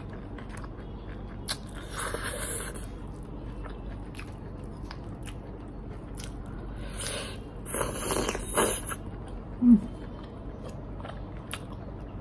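Close-up eating sounds from someone eating hakka noodles and chili chicken: chewing with many small wet mouth clicks, and two longer slurps, one about two seconds in and one around eight seconds. A short, loud thump near the ten-second mark is the loudest sound.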